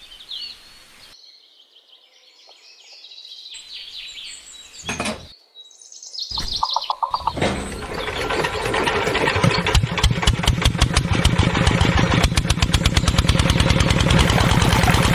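Birds chirp for the first few seconds. About six seconds in, the miniature model diesel engine on a toy water-pump cart starts up: its beat quickens and then settles into a fast, even running beat.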